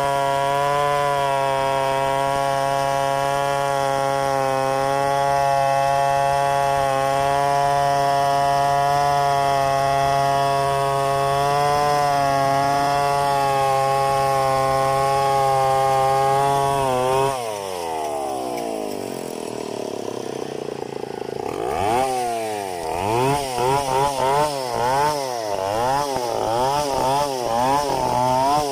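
Large two-stroke chainsaw held at steady full throttle while ripping a log in freehand milling. About two-thirds of the way in, the revs drop sharply, then the throttle is blipped over and over, the engine note rising and falling in quick repeated revs.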